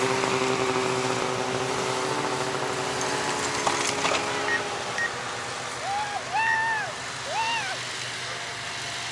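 Snowmobile engines running steadily amid outdoor crowd noise, their hum fading after about four seconds, with a few sharp knocks; near the end a voice calls out three short rising-and-falling shouts.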